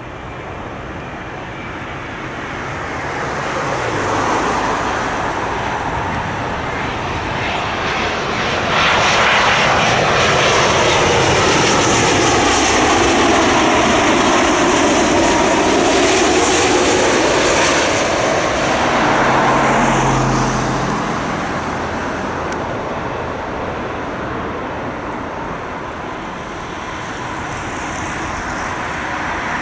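A heavy jet airliner on approach to land, passing overhead. Its engine noise swells to a loud roar in the middle, with a sweeping, phasing sound as it passes, then fades away.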